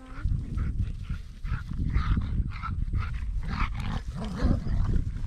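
Two dogs growling in rough play as they tug at one object between them: an irregular, pulsing low growl throughout.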